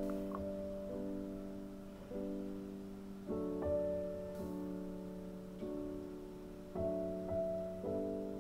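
Soft background piano music: slow sustained chords, a new chord about every second.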